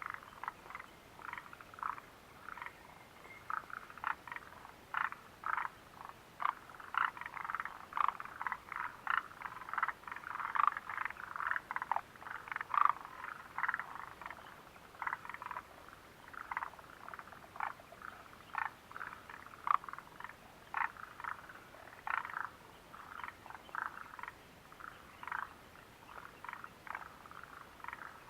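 A chorus of frogs calling, many short croaks overlapping at several a second, busiest in the middle and thinning slightly towards the end.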